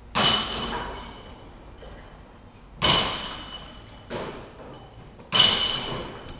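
Three disc golf putts striking the steel chains of a basket, about two and a half seconds apart: each a sudden metallic crash of chains that rings and rattles out over about a second. A smaller knock comes between the second and third.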